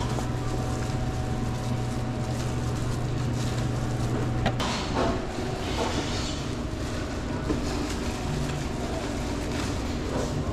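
A steady low machine hum stops with a sharp click about four and a half seconds in, followed by scattered light knocks and rustles of handling.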